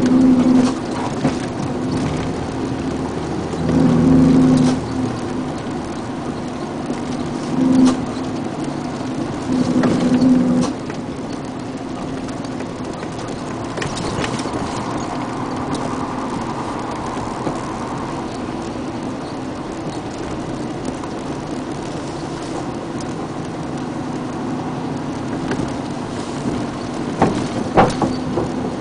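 Vehicle engine and road noise while driving, a steady hum with several louder surges in the first ten seconds. A few sharp clicks come near the end.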